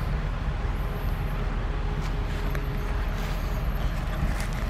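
Steady outdoor background rumble and hiss, heaviest in the low end, with no distinct event standing out.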